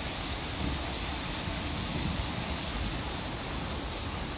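Steady hiss of rain, with a low rumble of wind on the microphone.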